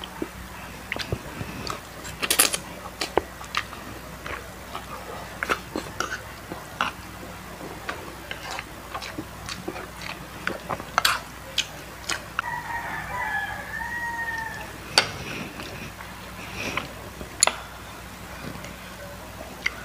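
Eating sounds: crunchy chewing of crispy fried chicken skin and sharp clicks of a fork against the dish. About twelve seconds in, a rooster crows in the background for a couple of seconds, its pitch rising and falling.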